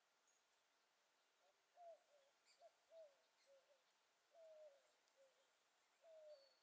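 Faint series of soft, low hooting notes from a bird, starting about a second and a half in: several short notes and two longer, slightly falling ones.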